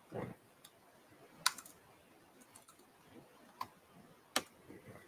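A few scattered keystrokes on a laptop keyboard as a terminal command is edited, with the sharpest clicks about a second and a half in and near the end.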